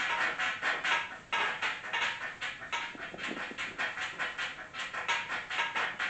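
Whiteboard being wiped clean: quick back-and-forth rubbing strokes, about three or four a second, with a brief pause about a second in.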